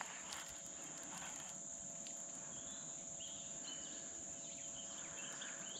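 Steady high-pitched drone of insects, with a few faint bird chirps.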